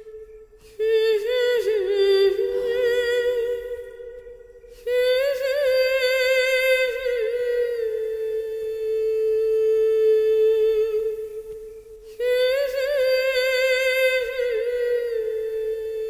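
Wordless hummed vocal melody in three slow, wavering phrases over a steady held drone tone, as a soft film background score.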